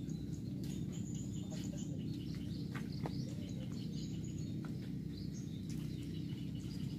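Small birds chirping and twittering in short, scattered calls over a steady low background rumble.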